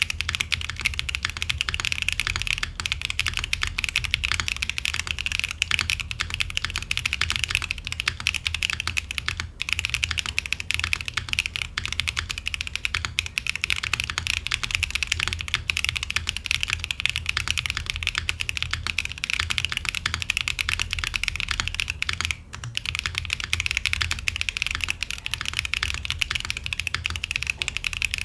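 Continuous fast typing on a Raiden64 gasket-mount mechanical keyboard with a POM plate, lubed Geon Clear tactile switches and GMK ONI keycaps: a dense stream of keystrokes, with a brief pause about three-quarters of the way through.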